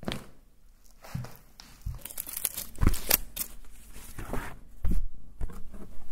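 Paper and card rustling and crinkling as a vinyl record is handled and slid out of its sleeve, with scattered knocks and thumps.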